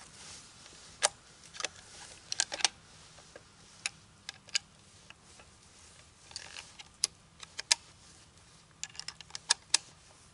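Scoped hunting rifle being handled: a series of sharp, irregular metallic clicks and clacks from its action, some coming in quick clusters.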